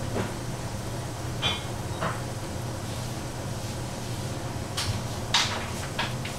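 Kitchen handling noise: about five short, sharp knocks and clicks of containers and utensils being picked up and set down, one of them briefly ringing, over a steady low hum.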